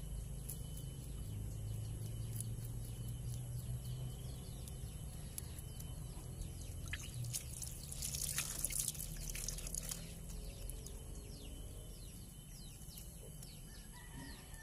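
Metal spoon scraping the scales off a small tamban sardine: faint, repeated short scratching strokes, with a louder scratchy rush about eight seconds in.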